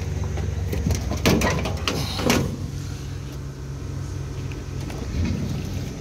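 Steady low hum of rooftop HVAC equipment running, with a few knocks and scrapes of handling metal panels and wiring between about one and two and a half seconds in.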